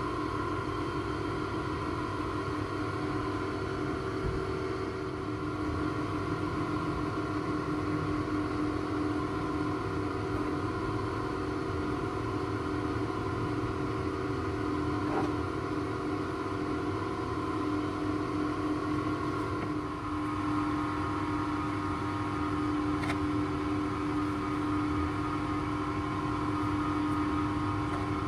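A motor running steadily with a constant droning hum; its pitch shifts slightly about twenty seconds in.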